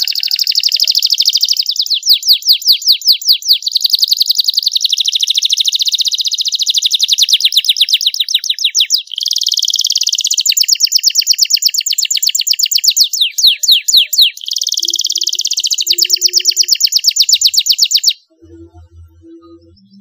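Domestic canary singing a long, unbroken song of fast trills and rolls, the quick repeated notes sweeping down in pitch. It stops abruptly near the end.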